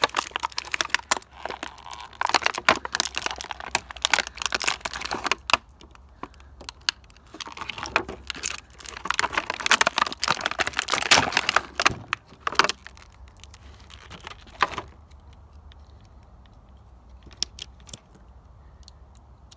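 Stiff clear plastic blister packaging crackling and crinkling as Bakugan toys are pried out of it, dense for about fifteen seconds, then only a few stray clicks.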